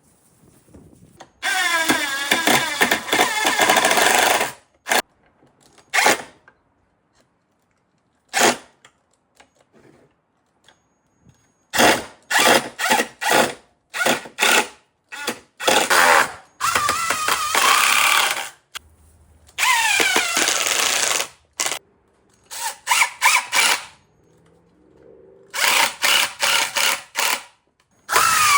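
Power drill driving screws into wood in repeated trigger bursts, the motor speeding up and winding down each time. One run lasts about three seconds near the start, then come many short bursts.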